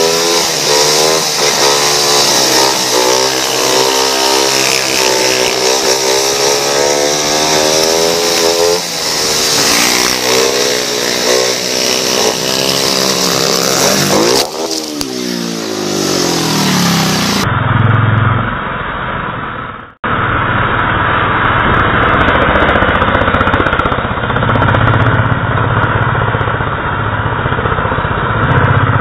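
Onboard sound of a speedway motorcycle's 500 cc single-cylinder engine at racing speed, its note rising and falling with the throttle through the bends. About 14 seconds in the note falls away sharply and swoops back. From about 17 seconds on the sound is duller and steadier, with a brief dropout a few seconds later.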